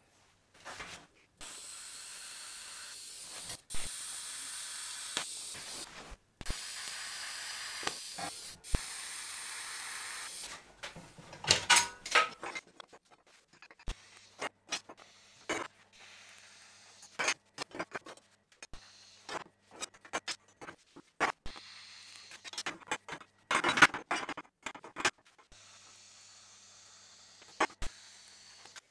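TIG welding arc hissing steadily in several stretches, loudest in the first third. Metal tubes and parts clink and knock on a steel welding table between welds.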